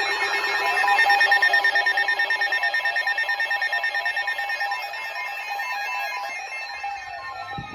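Several weather alert radios sounding their alarm tones at once, layered steady and rapidly pulsing electronic beeps that set off a new severe thunderstorm warning. A falling tone sweep and a warbling tone come in near the end.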